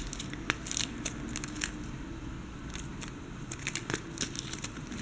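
Small gold-plated brass earring connector bars clicking against each other and against a plastic box and bag as fingers pick them out. Scattered light clicks and a little crinkling.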